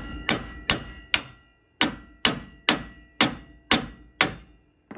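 Hammer blows on a steel pickle fork driven between a lower ball joint and the steering knuckle, about nine ringing metal strikes: three, a short pause, then six at an even pace. They are forcing the tightly seated ball joint stud out of the knuckle.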